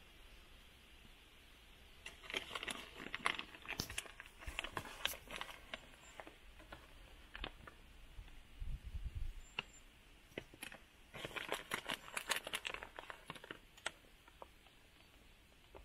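Plastic bag crinkling as handfuls of shredded cheese are pulled out and sprinkled, in several clusters of small crackles with quieter gaps between.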